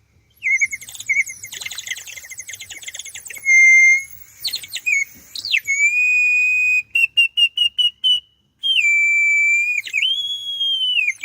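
Handmade terracotta water whistle, part-filled with water and blown, giving a bird-like warble: fast bubbling trills first, then held whistle notes that slide in pitch. Near the middle comes a run of quick chirps at about seven a second, and the last note rises and then drops away.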